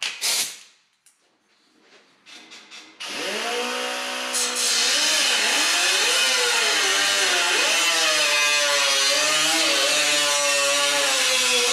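A small cutoff-wheel tool spins up about three seconds in after a few light handling clicks. It then runs with a steady whine that dips and recovers in pitch as the wheel cuts into the sheet-steel grille of a Farmall M tractor.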